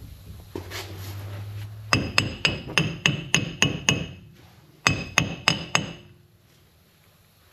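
Hammer striking a rusted rear wheel hub on a 2008 Dodge Ram 2500, in a quick run of about ten blows and then about five more after a short pause, each with a metallic ring. The hammering is to break the seized hub free of the axle.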